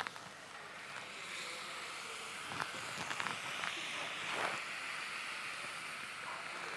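Water poured from a stainless steel pot into a hot paella pan of fried onion and oil, hissing and sizzling steadily as it goes in: the cooking water added to the sofrito in place of stock. A few light clicks of the metal skimmer against the pan come in the middle.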